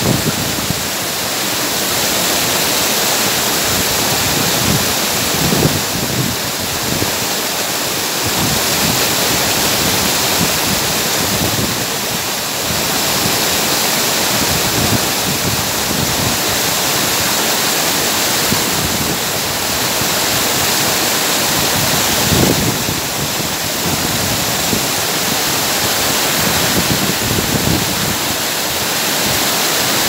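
Tall waterfall pouring onto rocks: a loud, steady rush of falling water.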